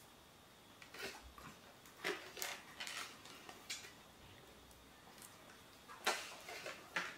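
Faint crinkling and tapping of packaging being handled and unwrapped, in short clusters about a second in and again near the end.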